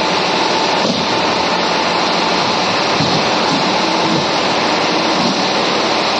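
Hydraulic fly-ash brick-press machine running, a steady, loud mechanical noise.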